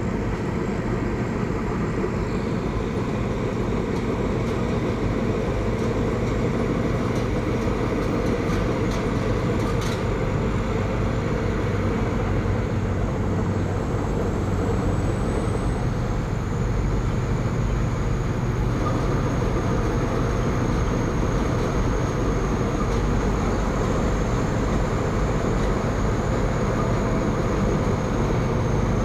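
Thai Seng Yont combine harvester running steadily: a low engine drone with machinery noise and a thin high whine above it.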